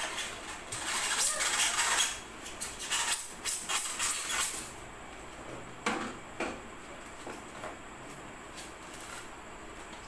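Rustling and scraping of packaging as parts are lifted out of a polystyrene foam insert for the first few seconds. About six seconds in, a sharp knock and a softer one follow as a plastic RC transmitter is set down on the table.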